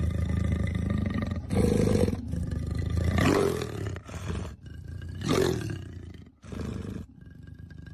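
Leopard growling and snarling at close range: a continuous deep rumble broken by several louder, rough snarls, which die down near the end.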